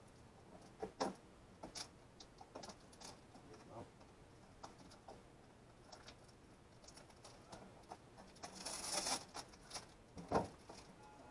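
Scattered light clicks and taps of small objects being handled, then a short scraping rustle about nine seconds in and a single knock just after.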